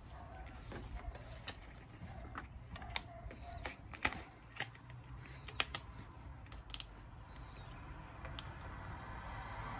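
Irregular small clicks and taps from a steel side-step bracket and its padded piece being handled and fitted by hand, with a couple of sharper clicks about four and five and a half seconds in.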